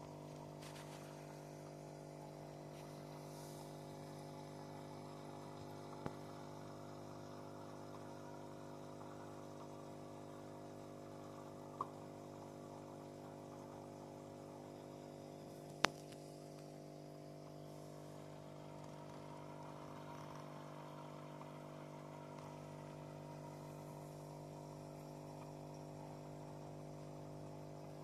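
A steady low hum made of several held tones, with three brief clicks spread through it; the last click is the loudest.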